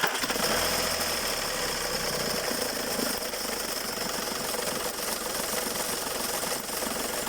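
Skoda Fabia 1.4 TDI three-cylinder diesel running at idle just after starting, with a very loud knocking noise from the accessory belt area: the alternator's ribbed pulley and the belt tensioner are worn and due for replacement.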